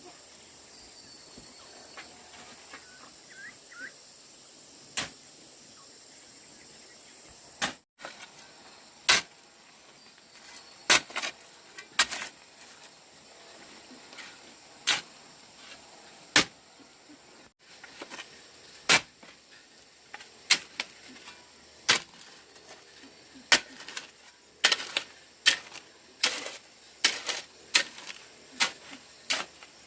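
A series of sharp knocks, spaced irregularly and coming more often in the last third, a few of them much louder than the rest.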